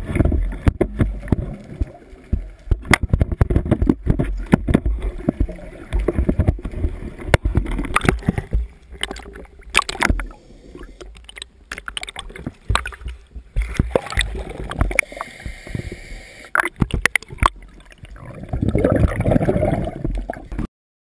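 Seawater sloshing and gurgling around an underwater camera close to the surface, with many sharp knocks and clicks. There is a denser rush of water near the end before the sound cuts off.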